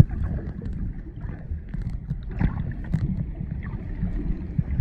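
Muffled underwater sound picked up by a camera held below the surface: a low rumble of moving water with scattered small clicks and crackles.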